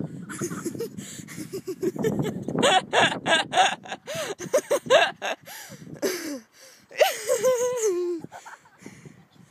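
People laughing in quick bursts, then several short rising-and-falling shrieks and one long shriek about seven seconds in that falls in pitch.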